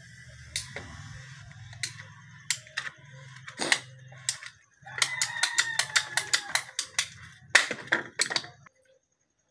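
Ratcheting PVC pipe cutter clicking as its handles are squeezed shut on blue PVC pipe. Scattered clicks give way about halfway to a quick run of clicks, then a few louder snaps near the end as the blade cuts through.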